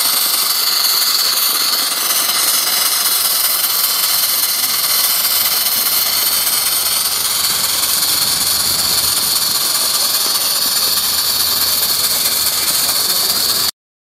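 Live steam model of a Pennsylvania Railroad steam locomotive hissing steadily as it runs under steam. The sound cuts off suddenly near the end.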